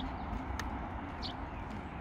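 Light footsteps tapping on pavement a few times over a steady outdoor rumble.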